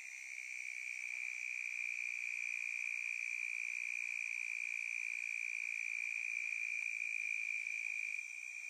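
Steady, high-pitched trilling of a night insect chorus. It swells slightly about half a second in and eases off near the end.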